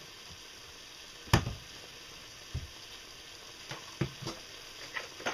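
Bacon, onion, pepper and mushroom frying in a pan with a steady low sizzle, broken by several sharp knocks and clatters in the kitchen, the loudest about a second in.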